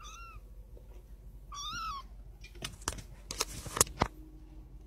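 Young kitten mewing: a faint short high mew at the start and a louder, clearer mew about a second and a half in. After it come a few sharp clicks and scuffs.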